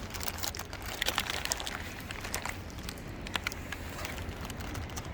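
Scattered sharp clicks and crackles over a steady low background rumble.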